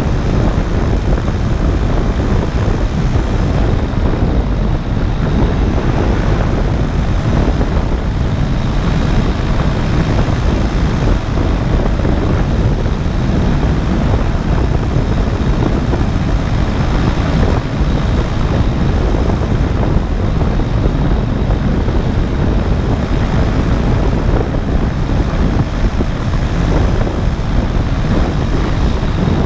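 Paramotor engine and propeller running steadily in flight, a continuous drone mixed with rushing air on the microphone.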